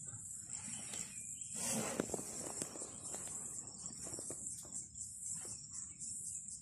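Steady high-pitched insect chorus in the bush, with a brief rustle about two seconds in and scattered faint cracks and clicks.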